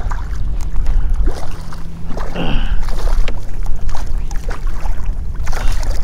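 A hooked speckled trout splashing and thrashing at the water's surface beside a kayak, over a steady rumble of wind on the microphone, with a louder burst of splashing near the end.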